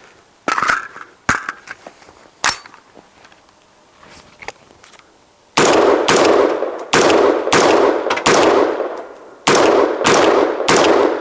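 HM Defense AR-15 rifle fired semi-automatically after being left frozen in the snow: seven sharp shots, about half a second to a second apart, starting about halfway in. Before them come a few short, sharp metallic clacks.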